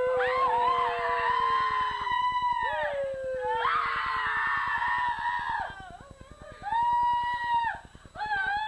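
Several high voices in long, drawn-out wailing cries that rise, hold and fall away, overlapping at first, then single shorter cries with quieter gaps between them near the end.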